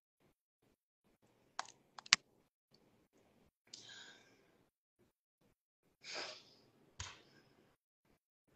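A few sharp clicks and taps close to the microphone, the loudest about two seconds in and another near the end. Between them come two short breathy exhales.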